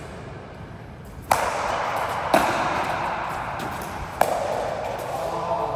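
Three sharp knocks: the first about a second in, then one and two seconds after it. A louder spell of noise follows each one.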